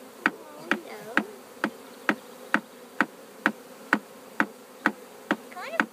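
Honeybee swarm humming steadily while settling into a top bar hive; it is just the normal sound of bees, not anger. A sharp click repeats evenly a little over twice a second throughout.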